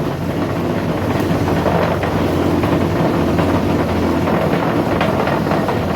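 Ingco bench grinder's electric motor running steadily at full speed, a constant hum and whir: with its faulty capacitor replaced, it now starts and spins normally instead of only humming.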